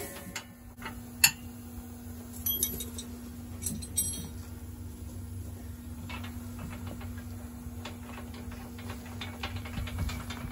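A few sharp metallic clinks and knocks of hand tools against the utility vehicle's steel frame, the loudest about a second in, over a steady low hum.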